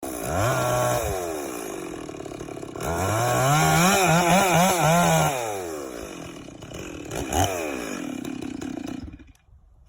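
Gas chainsaw revving: a short burst, then idling, then a longer rev of about two seconds with the pitch wavering, a quick blip, and the engine shuts off shortly before the end.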